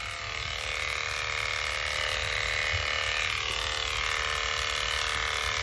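Electric horse clippers running with a steady hum as they cut through a horse's coat around the head and ears.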